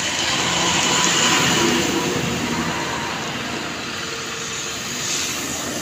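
A motor vehicle passing close by: a steady rushing noise with a low engine hum, loudest in the first two seconds and then easing off.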